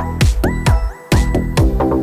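Electronic dance music with a fast, steady beat and sliding synth tones, dropping out briefly about halfway through.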